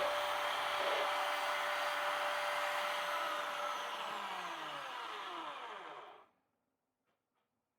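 Electric power tool motor switched off and spinning down: its whir falls steadily in pitch and fades over about four seconds, then stops about six seconds in.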